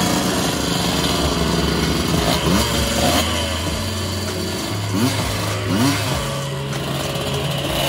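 Old trail motorcycle engine running at idle, with a few short throttle blips that raise the pitch briefly.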